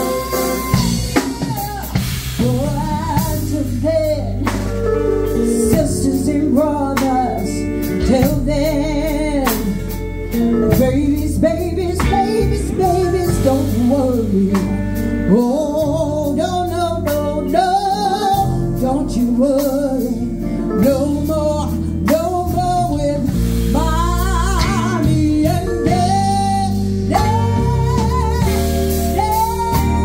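Live band music: a woman singing into a microphone, with electric guitar and drum kit behind her.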